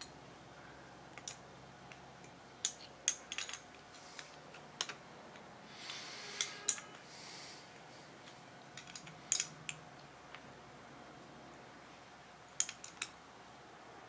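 Small metal carburetor parts and hand tools clicking and tapping against each other in scattered little clusters as a Keihin VB carburetor is reassembled by hand, with a brief rustle near the middle.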